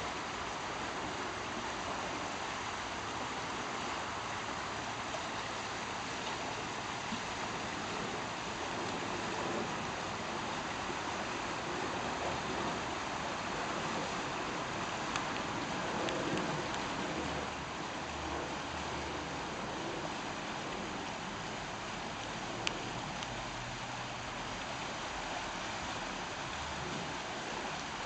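Shallow river water rushing and splashing over rocks and gravel in a riffle: a steady, even rushing.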